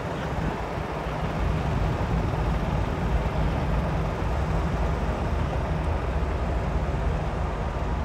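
Steady vehicle engine and road noise with a low engine hum, holding even throughout.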